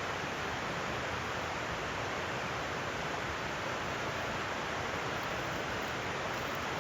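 River water rushing past in a steady, unbroken flow.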